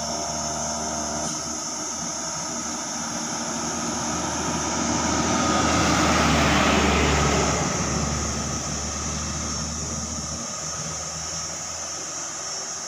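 Mitsubishi Fuso Canter (Colt Diesel) light truck's diesel engine and tyres as it drives past, growing louder to a peak about six seconds in and then fading as it pulls away.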